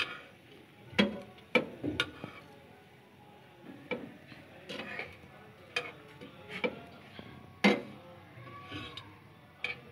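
Metal kitchen tongs clicking and tapping against a nonstick frying pan as shallow-frying bread pieces are picked up and turned over: about ten sharp clicks at irregular intervals, the loudest near the end.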